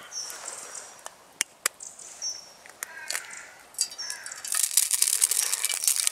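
Wild birds calling: short high chirps throughout and a harsher, crow-like call about halfway, with a few sharp clicks. In the last quarter a dense crackling hiss comes in.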